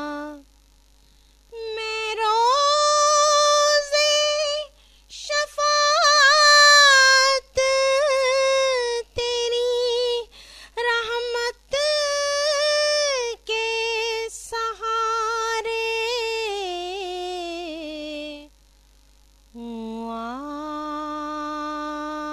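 A woman singing an Urdu naat in long, held notes that waver and glide, phrase after phrase with short breaths between them.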